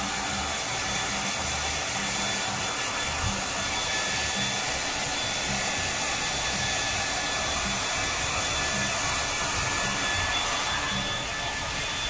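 Handheld hair dryer running steadily, blowing on a dog's wet coat to dry it after a bath; a thin high whine rides over the rush of air.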